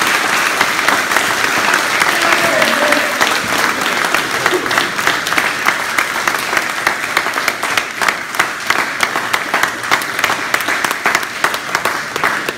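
A group of people clapping their hands in applause: a dense, even clatter of claps at first that thins into more separate claps over the second half.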